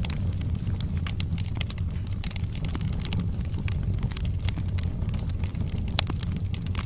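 Wood fire burning in a fireplace: a steady low rumble of flames with many irregular crackles and small pops from the burning logs, one sharper pop about six seconds in.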